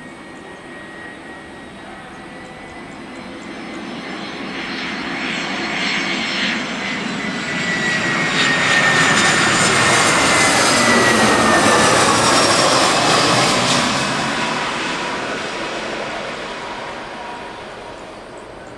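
Airbus A320-214 airliner's twin CFM56 turbofan engines passing low overhead on landing approach: the jet noise swells, peaks about midway and fades away, with a whine that slides down in pitch as it goes by.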